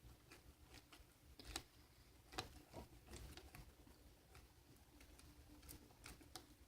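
Near silence with faint, scattered clicks and light taps of objects being handled at a table, a dozen or so spread unevenly through the stretch.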